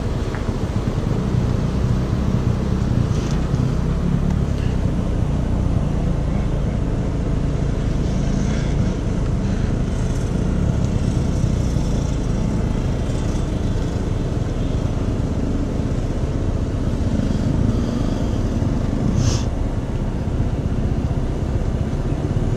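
Steady low rumble of engines running nearby, with a few faint clicks from ratchet tie-down straps being worked as a dirt bike is strapped onto a trailer; the clearest click comes near the end.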